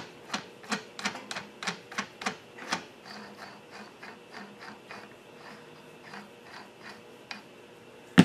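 Steel nut being spun off a threaded pull stud by hand: a run of light metallic clicks, about three a second, strongest for the first three seconds and then fainter. A single sharper metal click near the end.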